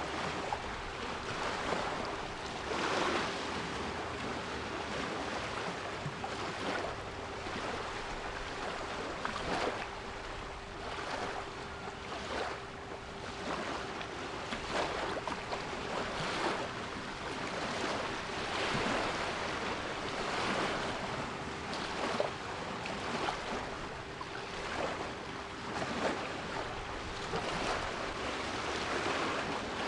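Sea waves surging and washing on the shore in repeated rushes, with a steady 396 Hz pure tone held underneath.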